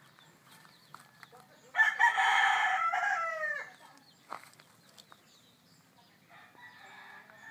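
A rooster crowing once, loud and close, about two seconds in, the call dropping in pitch at its end; a fainter crow starts near the end.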